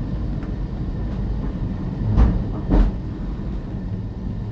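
Great Orme Tramway's cable-hauled tramcar running downhill on its rails, heard on board: a steady low rumble with two knocks a little over two seconds in, about half a second apart.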